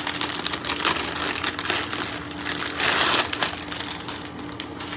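Plastic packaging crinkling and crackling as it is handled, with a louder burst of crumpling about three seconds in.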